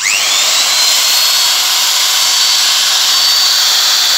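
Hitachi 570 W electric drill with an aluminium body switched on: the motor spins up in about half a second to a steady high whine and holds full speed. It runs strong and smooth, with no sparking at the carbon brushes, the sign of a motor in good order.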